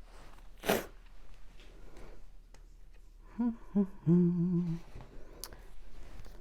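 A woman humming: two short hums and then a longer, steady one, about three to five seconds in. A short rush of air, like a sharp breath, comes just under a second in.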